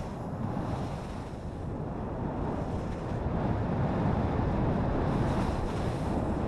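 Steady rushing noise of skiing downhill: wind buffeting the action camera's microphone together with skis sliding on snow, slowly growing louder as speed builds.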